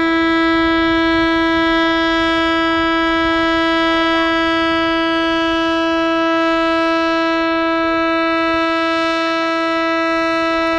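Dam warning horn sounding one long, steady, loud note at a fixed pitch, the alert given when the flood gates are opened, over the low rush of water from the spillway.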